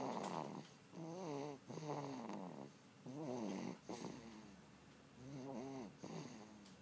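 Two-month-old baby girl snoring: a string of short, pitched snores whose pitch wavers, about one a second, with a pause of about a second a little past the middle.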